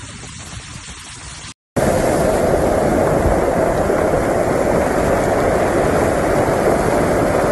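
Heavy rain falling steadily. After a brief dropout about a second and a half in, a much louder steady rush of a muddy flash-flood torrent, with a waterfall pouring off a rocky mountainside.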